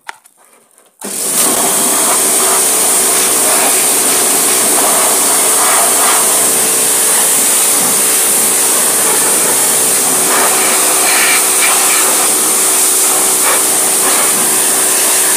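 Huter electric pressure washer starting about a second in and then running steadily: the pump motor's hum under the hiss of the water jet rinsing cleaning foam off an engine bay.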